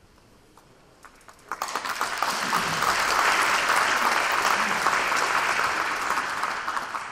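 Audience applauding. It starts with a few scattered claps about a second in and quickly fills out into steady, full applause.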